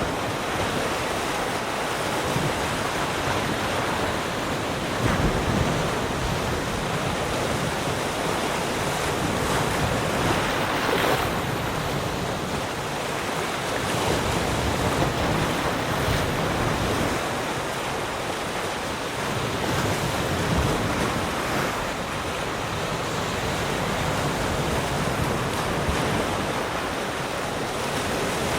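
Sea surf: waves breaking and washing on the shore in a steady wash, swelling and easing every few seconds, with some wind on the microphone.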